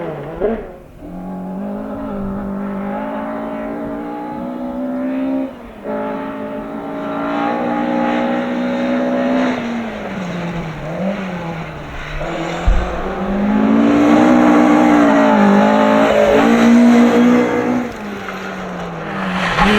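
Ford Escort Mk1/Mk2 rally cars driven hard on a stage: engines revving high, dropping at gear changes and climbing again, in several short passages that break off abruptly. About halfway through there is a single low knock, and the loudest stretch comes after it.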